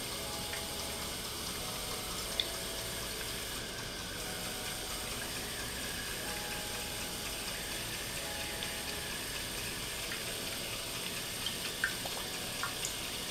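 Steady stream of tap water pouring into a clear jar, filling it around a 3D-printed bell siphon as the water level rises toward the point where the siphon triggers; a few small drips near the end.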